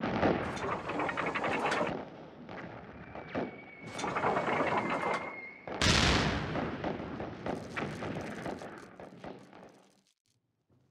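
Two bursts of rapid machine-gun fire, each a couple of seconds long, then a heavy boom about six seconds in that dies away over several seconds.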